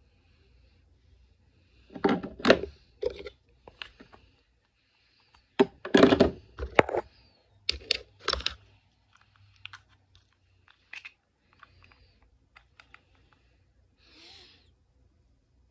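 Clicks, taps and clatter of makeup items being handled: brushes and plastic compacts picked up, set down and opened, in two busy bursts with scattered lighter ticks between.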